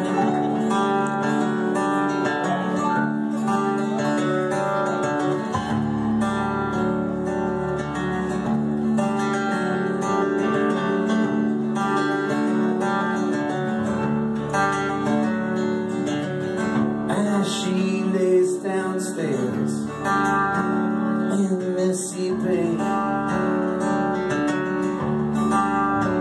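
Live band playing a song's instrumental intro: acoustic guitar strummed, with upright bass and keyboard.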